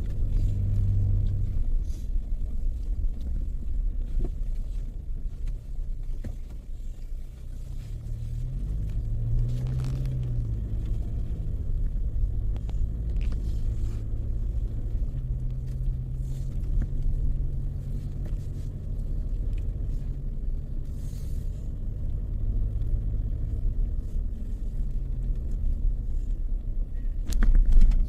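A car driving: a steady low engine and road rumble. The engine's hum rises and falls in pitch about ten seconds in, and there is a sharp knock near the end.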